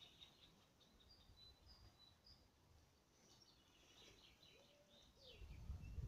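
Faint birdsong: small birds giving short high chirps and whistles, with a few lower gliding notes in the second half. A low rumble rises near the end.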